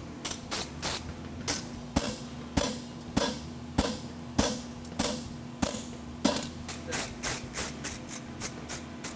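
Farrier's hammer striking a hot steel draft horseshoe on an anvil, each blow ringing, about one every half second through the middle stretch. Between and after the blows, a wire brush scrubs scale off the hot shoe in quick, rasping strokes.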